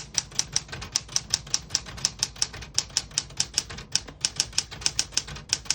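A 1974 Smith-Corona Galaxie Twelve manual portable typewriter being typed on at a steady pace, about five or six sharp keystrikes a second. The keys are typing cleanly without skipping or sticking.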